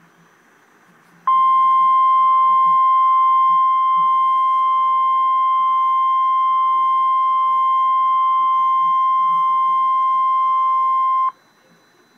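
NOAA Weather Radio's 1050 Hz warning alarm tone, the Emergency Alert System attention signal ahead of a tornado watch message. It is a single loud, steady beep that starts sharply about a second in and cuts off after about ten seconds, over faint radio static.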